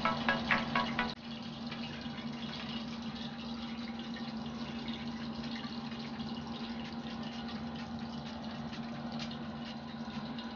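Hot oil sizzling steadily from deep-frying chicken lollipops, with a low hum under it and a burst of crackling in the first second.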